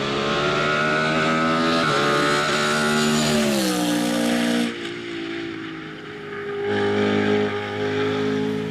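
BMW Z4 GT3's naturally aspirated 4.4-litre V8 racing engine pulling hard, with an upshift about two seconds in, then the note falling as the driver lifts off. After an abrupt break near the middle, the engine is heard again at a steadier high pitch.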